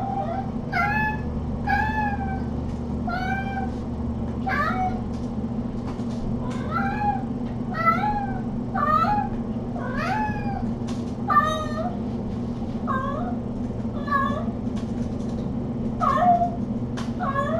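Kitten mewing over and over: short, high-pitched calls about once a second, over a steady low hum.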